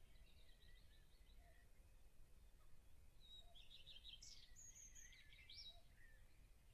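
Near silence with faint bird chirps and whistles, a quick run of them about three to five seconds in.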